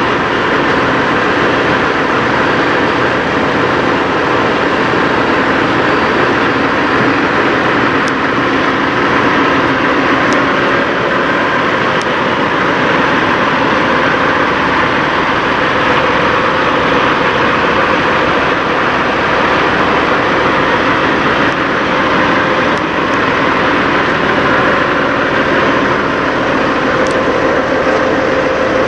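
Peterbilt semi truck's diesel engine idling steadily, heard up close, with a few brief high-pitched ticks.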